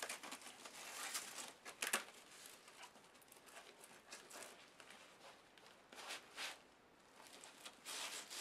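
Faint rustling and scraping of fabric and a stiff white panel being handled and pressed into place with Velcro, with a sharp tap about two seconds in and louder rustles near six seconds and at the end.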